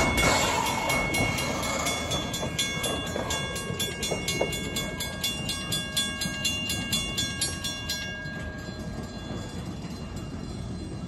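Narrow-gauge railway carriages rolling past on the rails, loudest at first and fading as the train moves away. Over this a level-crossing bell rings with rapid, even strikes and stops about eight seconds in.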